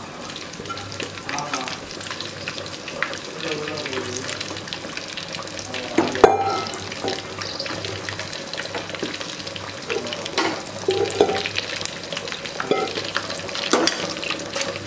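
Spiced chicken stock boiling hard in an open aluminium pressure cooker, a steady bubbling, as rice is poured in and sinks into it. Scattered clinks of metal on metal, the sharpest about six seconds in.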